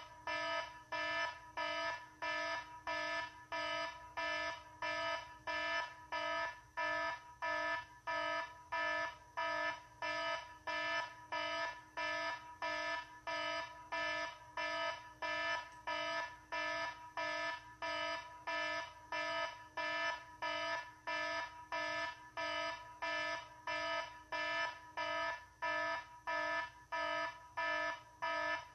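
Electronic alarm beeping: short, harsh electronic beeps repeat at an even pace, a little under two a second, without a break.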